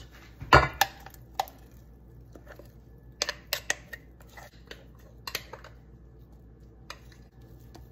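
Kitchen utensil and mixing bowl knocking and scraping as thick batter is poured and scraped into a baking dish: one dull knock about half a second in, then scattered light clicks and scrapes.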